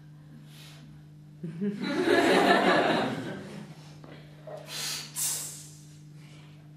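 Audience laughing for about two seconds, then two short, sharp hisses about five seconds in, over a faint steady low hum.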